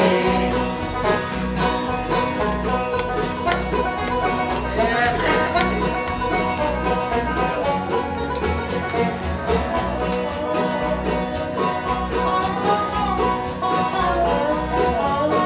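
A live gospel string band plays an instrumental break between choruses: plucked strings over a steady bass beat, with no singing.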